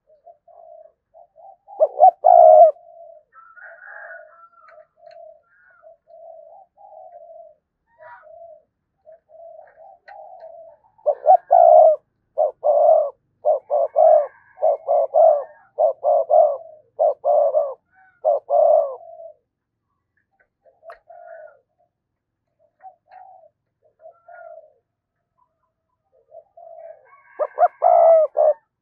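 Spotted dove cooing, a decoy bird's call for drawing in wild doves: soft, low coos repeat throughout. A loud burst comes about two seconds in, a run of about eight loud coos follows from roughly the middle, and another loud burst comes near the end.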